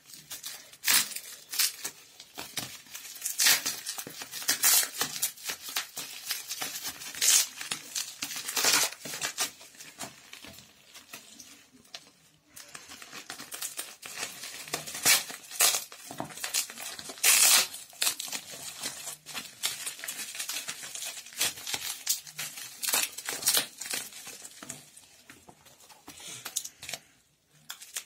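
Plastic bubble wrap crinkling in the hands while it is snipped with scissors, in irregular sharp crackles.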